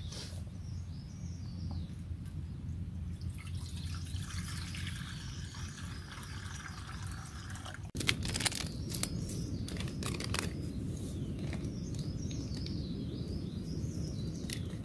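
Birds chirping over a steady low rumble. About halfway in, crackling and clicking as a small packet is torn open and its contents tipped into a mug.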